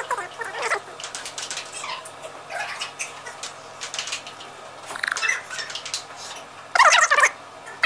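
Table tennis rally: a ping pong ball clicking off the paddles and the table, mixed with short high squeaks that fall in pitch. The loudest burst of squeaks comes near the end.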